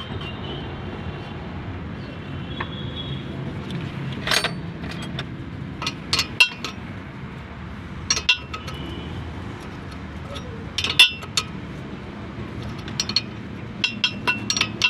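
Metal parts and tools clinking and knocking against each other during work on a truck drive unit: irregular sharp strikes with a brief metallic ring, several clustered together about 6, 11 and 14 seconds in, over a steady low hum.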